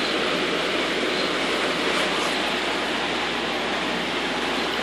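Water running steadily from a pipe and hose and splashing into the water of a koi pond vortex separator.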